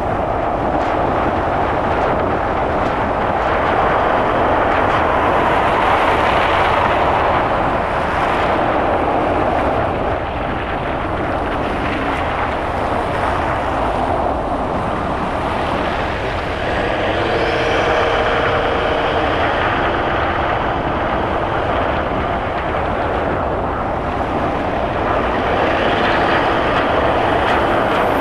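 A car driving on a winter city road: steady tyre and road noise with engine hum, swelling and easing as other traffic passes.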